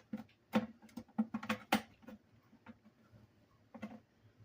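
Small toy sliding door clicking and knocking in its rail as it is pushed and jerked by hand, catching at one spot. A quick run of knocks in the first two seconds, then one more click near the end.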